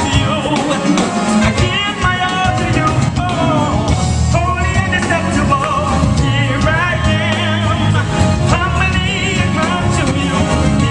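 Gospel choir singing with a live band, voices with wavering runs over drums and bass.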